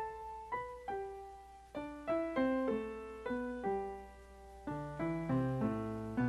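Piano music: a melody of single struck notes, each fading after it is played, with lower bass notes joining about five seconds in. A steady low hum runs underneath.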